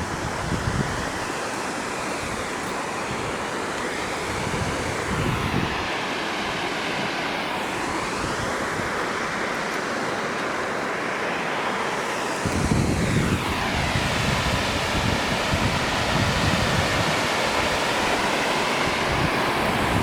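Water pouring over a small dam spillway: a steady, even rush. Wind buffets the microphone now and then, most strongly from a little past the middle.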